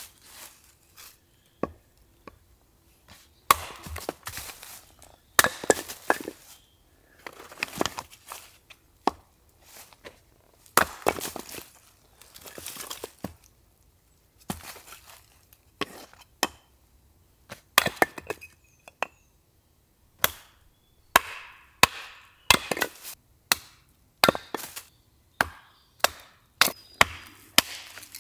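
Short hatchet splitting already-split firewood into smaller pieces on a stump chopping block: many sharp, irregularly spaced chops of the blade into the wood and block, some in quick runs of two or three, with the wood cracking apart.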